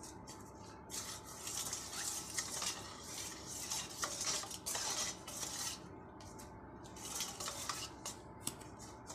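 Metal spoon stirring a thin flour-and-water batter in a stainless steel bowl, scraping and clinking against the steel in quick, repeated strokes with the liquid swishing.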